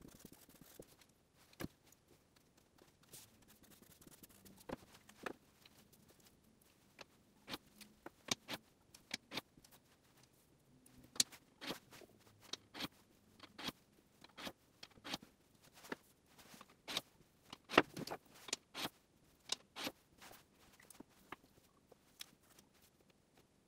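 Irregular light taps and clicks of a marker pen, a coin and a plastic ruler being handled and set down on paper on a desk, sparse at first and busier a few seconds in.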